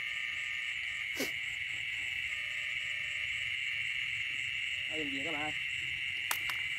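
Steady chirring chorus of night insects, crickets, in wet rice fields. A short wavering call breaks in about five seconds in, with a sharp click about a second in and another near the end.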